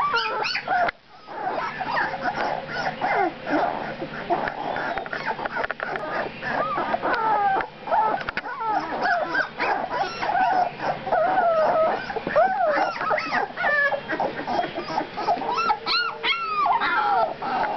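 A litter of two-week-old Labrador retriever puppies whimpering: many short rising-and-falling cries overlapping almost without a break, with a brief lull about a second in.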